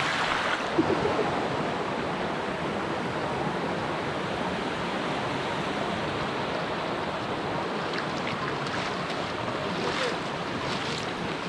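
Steady rush of water over rocks from a hill stream, with a few faint clicks near the end.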